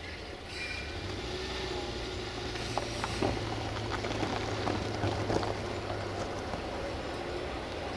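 A CFR 060-DA (LDE2100) diesel-electric locomotive with a Sulzer engine, running as it rolls slowly through a shunting yard. A steady low engine drone grows a little louder about half a second in, with a few sharp clicks and knocks in the middle.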